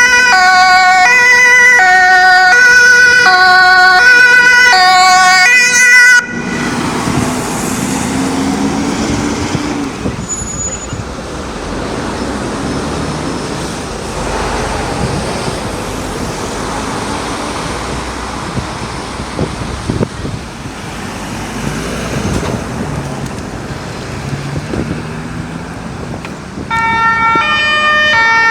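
Fire brigade vehicle's two-tone siren (German Martinshorn) alternating between a high and a low note, cutting off abruptly about six seconds in. About twenty seconds of road traffic and vehicle noise follow, and a two-tone siren starts again near the end.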